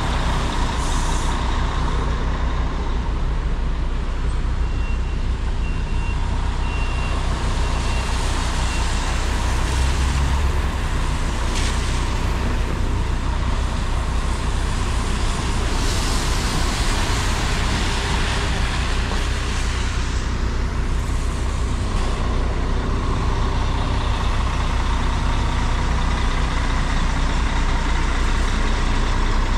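Bus engines running with a steady low rumble amid wet-street traffic noise, with a few short air-brake hisses. A short run of high beeps sounds about five seconds in.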